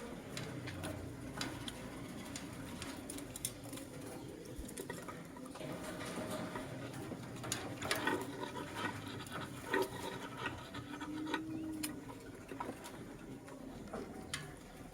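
Lovebirds moving about: a busy patter of small clicks and scratches of feet and beaks, with little or no chirping.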